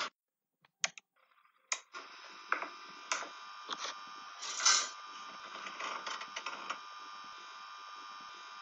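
Room tone of a small recording room: a steady faint electrical hum with a few scattered clicks and knocks, the longest about four and a half seconds in.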